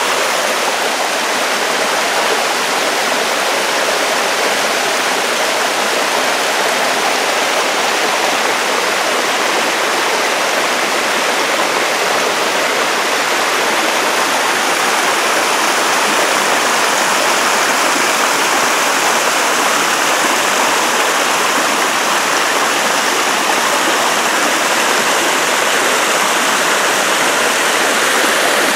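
Mountain stream rushing and splashing over rock slabs in small cascades, a loud, steady rush of water.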